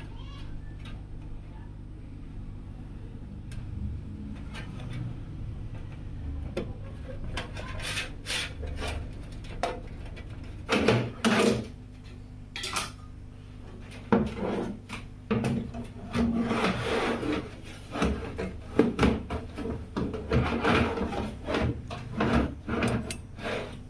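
PC case and components being handled during assembly: irregular clicks, light knocks and scraping rubs, sparse at first and busier from about halfway through, over a steady low hum.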